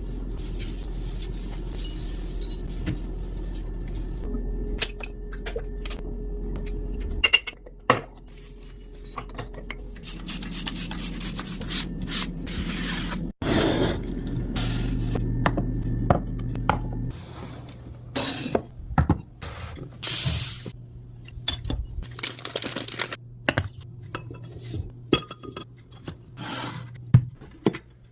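Dishes, cutlery and glassware clinking and knocking as kitchen items are handled and put away, over a steady low hum that changes or stops at each cut.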